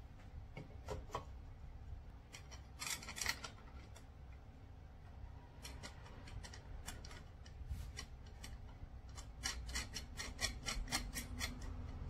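Hand assembly of a wooden table: wooden parts rubbing and tapping together, with small sharp clicks and scrapes as the fixing hardware is fitted by hand inside the hollow wooden pedestal. The clicks come in scattered clusters, busiest about three seconds in and over the last few seconds.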